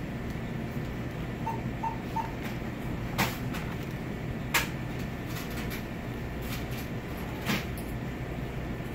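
Convenience-store ambience: a steady low hum, three short electronic beeps in quick succession a couple of seconds in, then a few sharp clicks or knocks, the loudest about halfway through.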